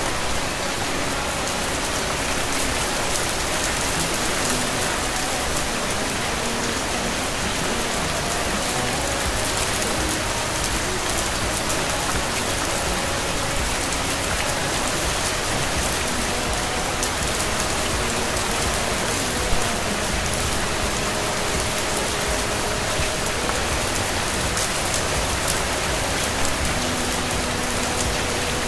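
Steady monsoon rain falling on a garden, an even hiss with a few sharper drop sounds now and then.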